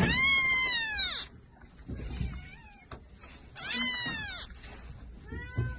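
Tabby kitten meowing loudly: two long, high-pitched meows about three seconds apart, each falling in pitch, and a third starting near the end.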